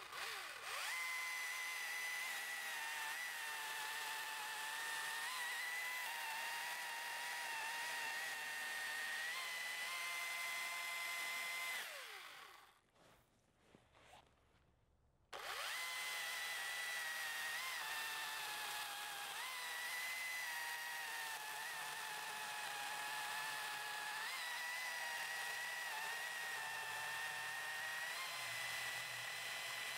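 Husqvarna T535i battery chainsaw with an Oregon Advance Cut chain cutting through a log, a steady high whine that wavers slightly in pitch as the chain works in the wood. It stops about 12 seconds in and starts again about three seconds later.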